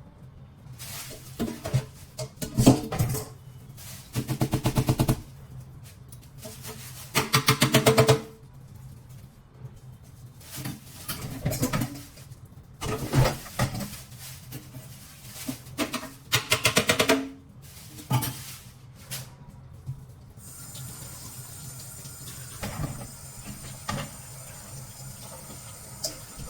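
A knife chopping on a cutting board in several quick bursts of rapid strokes, with single knocks between them, as peeled taro is cut into small pieces. A steady hiss starts about two-thirds of the way through.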